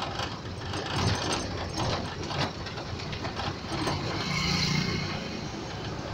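Auto-rickshaw's small engine running under way, heard from inside the open passenger cabin, with the body and frame rattling and clattering.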